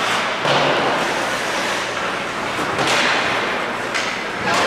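Ice hockey play sounds: skate blades scraping the ice and sticks striking the puck, with several sharp knocks, the loudest about three seconds in.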